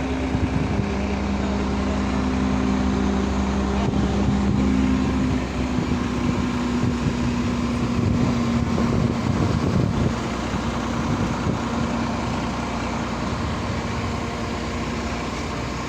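Excavator engine running steadily, with a sustained hum. It gets somewhat louder for a few seconds in the middle, then eases back.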